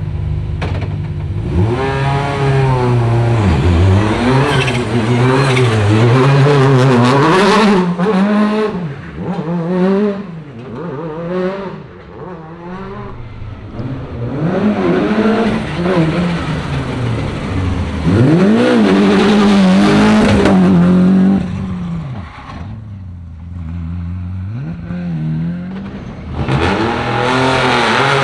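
Rally car engines revving hard, the note climbing and dropping again and again as the cars accelerate and brake to warm their tyres and brakes. It eases off for a few seconds near the end, then rises loudly once more.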